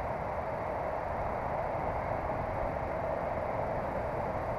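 Steady rushing of flowing creek water, an even wash of noise with no breaks or separate sounds.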